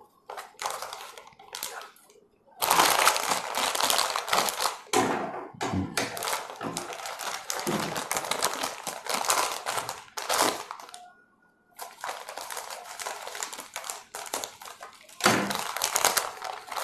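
Clear plastic packaging bags crinkling in irregular stretches while the plastic toy parts inside are handled, with a short pause about ten seconds in.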